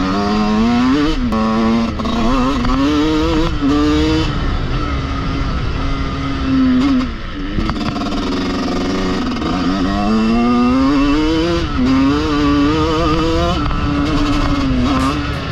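TM 125 motocross bike's single-cylinder two-stroke engine revving hard on the track, its pitch climbing and dropping repeatedly as the throttle is worked through the gears, with short spells held at one pitch.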